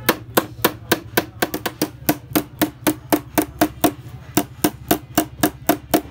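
A hammer tapping metal rapidly and steadily, about four blows a second, as the radiator is worked on, over a steady low hum.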